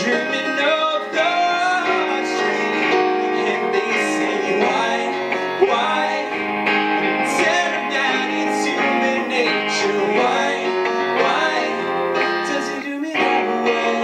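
Live duo playing a slow pop song: an electric hollow-body guitar strummed under a Nord Electro 2 stage keyboard, with a man's voice singing the melody over them.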